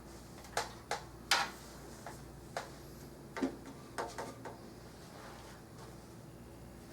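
Light clicks and taps from a computer case being handled, about eight of them in the first four and a half seconds, then only faint room tone.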